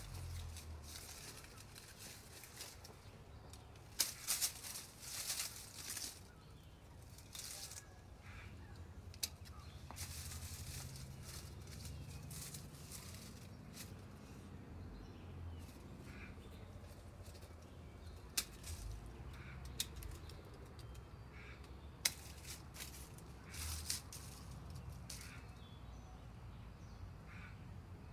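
Dry beech leaves rustling in bursts, with a few sharp clicks as the small tree's branches are handled, over a low steady outdoor rumble.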